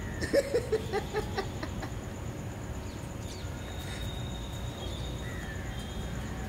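Puppy whimpering: a quick run of about six short, high whines in the first second and a half, over a steady low background rumble.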